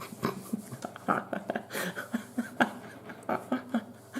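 A man's short sniffs and catching breaths, several a second, with small whimpering voice sounds: he is trying to bring on a sneeze that will not come.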